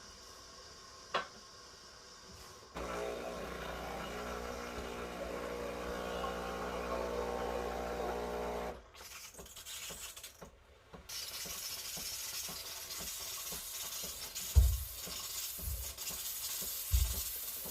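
A Breville Barista Express espresso machine's motor or pump runs with a steady hum for about six seconds, then stops. A rougher hissing, scraping noise follows, with two dull knocks near the end.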